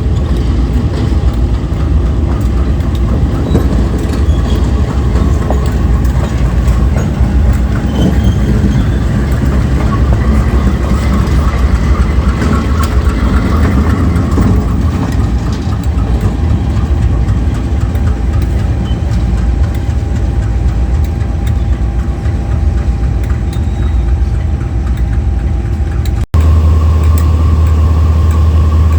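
KiwiRail diesel locomotive engines running loudly and steadily. About 26 seconds in, the sound cuts abruptly to a louder, steadier engine hum with a high whine over it.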